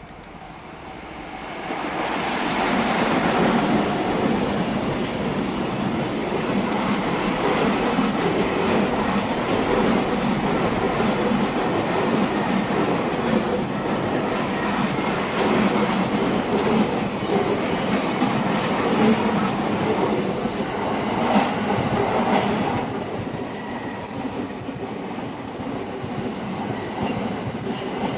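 A JR Tokaido Main Line train passing close by, running over the rails. The sound builds over the first two seconds, stays loud for about twenty seconds, then eases off somewhat near the end.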